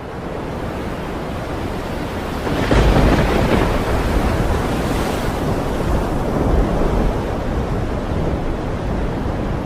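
Rough sea with wind: waves surging and breaking without pause, with a louder surge of surf about three seconds in.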